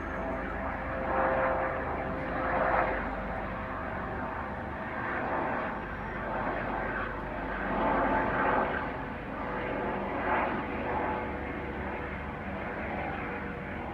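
Airplane flying by, a steady drone with faint held tones, over a bed of wind and road noise that swells and fades several times.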